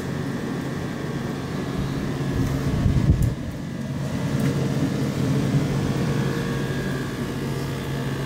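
Emerson Quiet Kool 19,000 BTU window air conditioner running: a steady hum from its rotary compressor with the fans blowing air. A brief low rumble about three seconds in.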